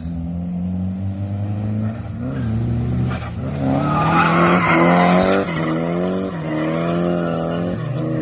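Nissan 240SX drift car's engine revving up and dropping back repeatedly as its tyres squeal through a slide. The tyre squeal is loudest about halfway through.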